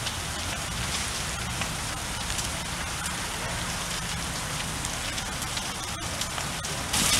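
Falling water pattering steadily on surfaces, with scattered small ticks. The patter turns suddenly louder and hissier near the end.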